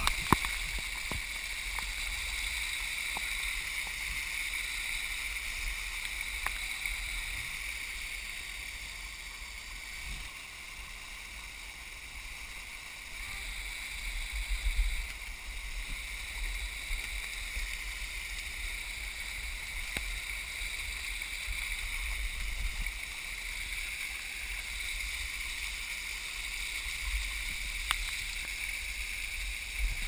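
Steady rushing of a small waterfall spilling down the rock face close by, with low rumbling bumps and a few sharp clicks scattered through it, louder for a moment about halfway.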